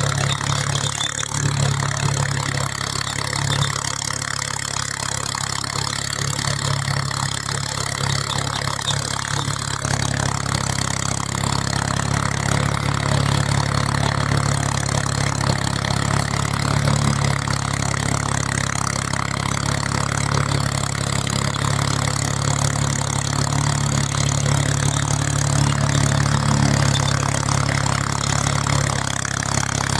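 Farm tractor engine running steadily while pulling a tillage implement through a field.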